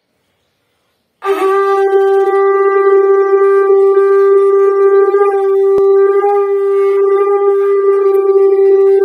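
Conch shell (shankh) blown in one long steady note, starting about a second in: a loud, level horn-like tone with a strong low fundamental.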